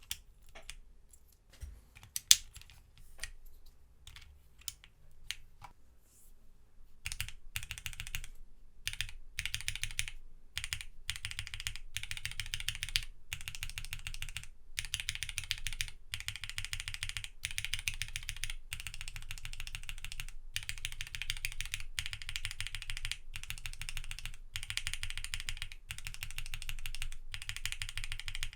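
Mechanical keyboard with linear switches, an FR4 plate, no foam and PBT keycaps, typed on. Separate key presses come a few at a time for the first several seconds, then fast continuous typing.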